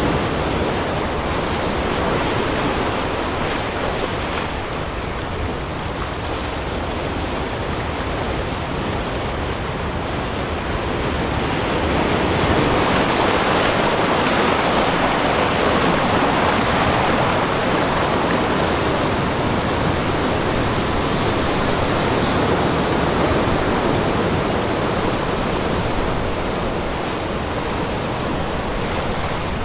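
Ocean surf breaking and washing among shoreline rocks, a steady rush that grows louder about twelve seconds in.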